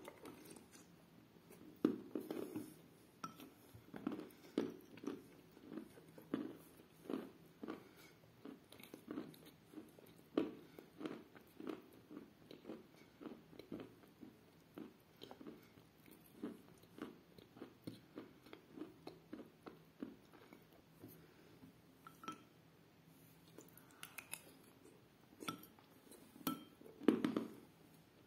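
Close-up chewing of chalk and clay soaked in milk: short crunches and mouth clicks about twice a second, with a louder cluster near the end.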